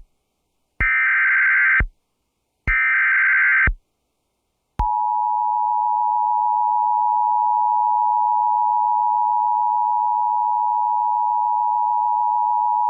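Emergency Alert System SAME header: the last two of three harsh digital data bursts, each about a second long with short gaps between. About five seconds in, the two-tone EAS attention signal starts and holds steady, marking the start of an emergency alert.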